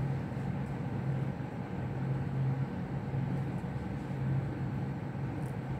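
A steady low mechanical hum over an even background noise, with a faint light click near the end.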